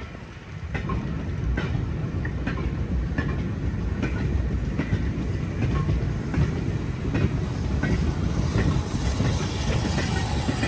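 Vintage four-wheeled goods wagons rolling past, wheels clicking over the rail joints about every three-quarters of a second over a steady low rumble. A hiss builds near the end.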